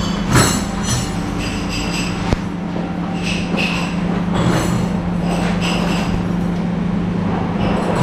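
A steady low machine hum under a continuous rushing noise, with scattered light clinks and squeaks over it.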